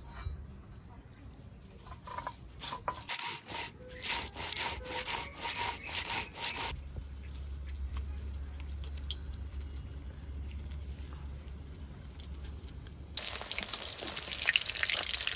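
Rhythmic scraping strokes, about two a second, then a low steady hum. Near the end a sudden loud sizzle starts: food frying in hot oil.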